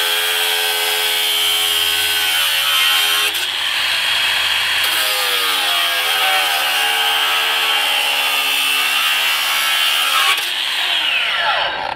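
Makita XAG12 36V (two 18V batteries) cordless 7-inch angle grinder with an abrasive cut-off wheel cutting a steel Y-post, its motor whine dipping in pitch several times as the load rises under harder pressure. Near the end the motor is released and winds down quickly in a falling whine to a stop.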